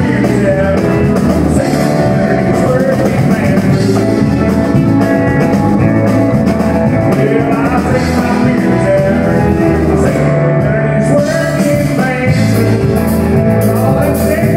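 Live country band playing: a man singing through the PA over electric guitar, drums and keyboard.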